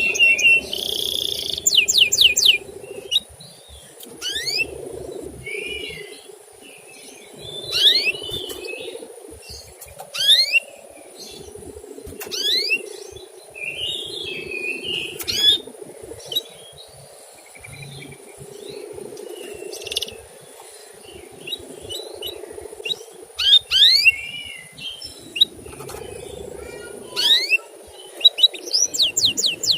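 Male canary chirping in short bursts every few seconds, mostly quick rising 'cuit' notes with a few brief warbled phrases, over a low background rumble.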